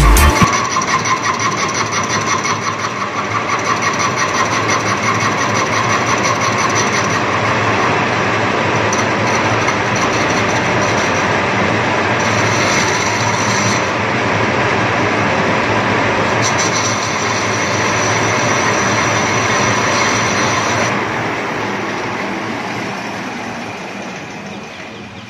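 Metal lathe turning a Tullu pump housing, the tool bit cutting down the ring where the impeller runs with a steady, rough scraping noise. The cut lowers that ring so the impeller runs closer and the pump's pressure comes back. The sound fades over the last few seconds.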